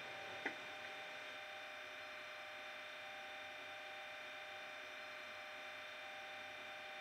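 Sound-fitted Bachmann Class 37 model diesel locomotives idling: their SWD sound decoders play a Class 37 engine idle through small EM2 speakers, heard as a steady thin hum. There is a single click about half a second in.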